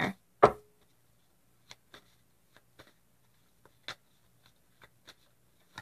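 Tarot cards being handled on a table: one sharp tap about half a second in, then faint, irregular clicks.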